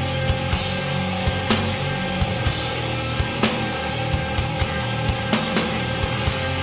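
Thrash metal band playing live: distorted guitars and bass holding steady chords over a fast, regular kick-drum pattern, with cymbal crashes about a second and a half and three and a half seconds in.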